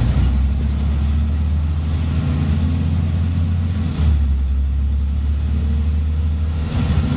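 Scania N94UB single-deck bus diesel engine pulling hard under full-throttle acceleration after a kickdown, heard from inside the passenger cabin. Its note changes about four seconds in and again near the end as the automatic gearbox shifts.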